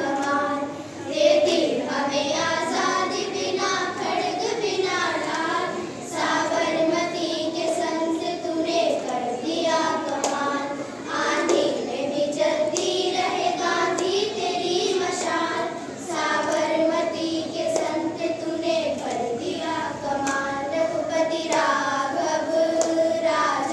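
A group of children singing a song together in unison, in long held phrases with short breaths between them.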